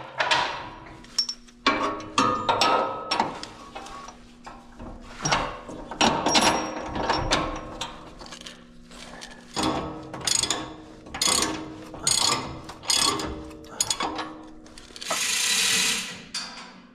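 Hand ratchet wrench clicking in repeated strokes as the bolts of a steel bumper mount are tightened on a pickup's frame. A brief hiss of about a second comes near the end.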